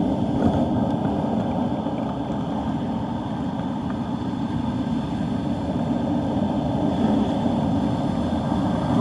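Steady rumbling rush of gusty wind on the microphone mixed with heavy surf breaking on the beach, as storm waves build ahead of a hurricane.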